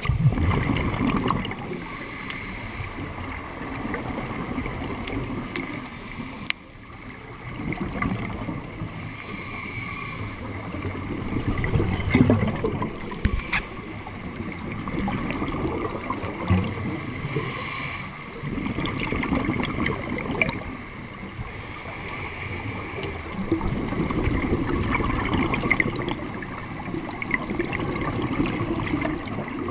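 Scuba diver breathing through a regulator underwater: exhaled bubbles gurgle out in a surge every few seconds, with a short hiss of air between surges.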